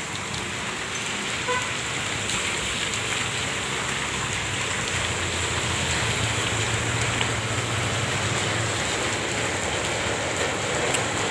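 Steady rain falling, an even, dense hiss. A low engine hum rises under it around the middle and fades out.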